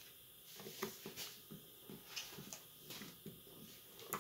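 Faint clicks and taps from hands and a small screwdriver working on the plastic midframe and parts of a Samsung Galaxy A04s during reassembly. There are a few light taps each second, and a sharper click near the end.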